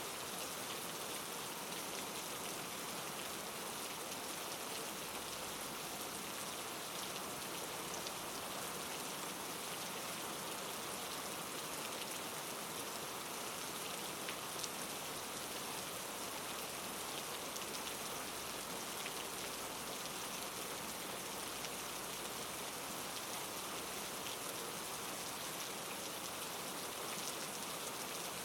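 Steady rain falling on a surface, an even hiss with scattered single drops ticking through it.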